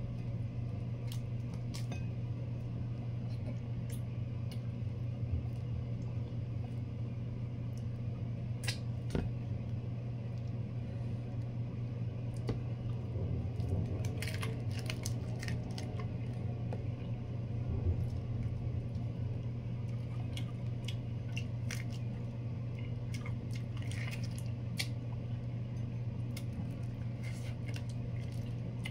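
Eating sounds as large whole cooked prawns are pulled apart and bitten into, shells on: scattered crackles, clicks and wet smacks that come thickest about halfway through and again near the end. Under them runs a steady low hum.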